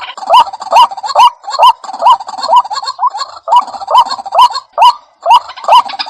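White-breasted waterhen calling: a loud, fast run of short rising notes, about two to three a second, with a couple of brief breaks.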